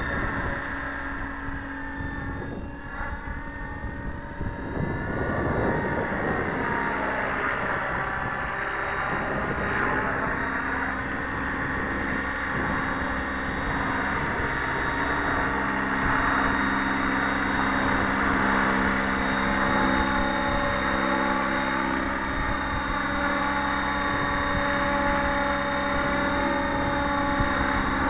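Align T-Rex 700 radio-controlled helicopter in flight: the steady buzz of its spinning rotors and drive. Its pitch dips and recovers twice in the first ten seconds or so, then holds steady.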